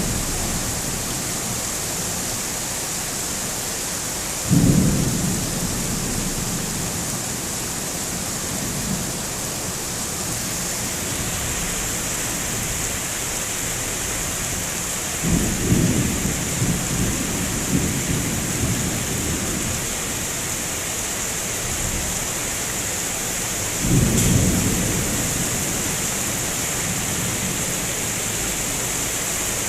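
Thunderstorm: rain hissing steadily, with thunder rumbling three times, about four seconds in, around the middle, and again near the end.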